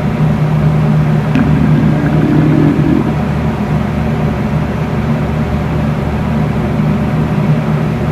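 Electric fan running with a steady hum. From about a second and a half in, a hungry, empty stomach growls for a second or two under the hum.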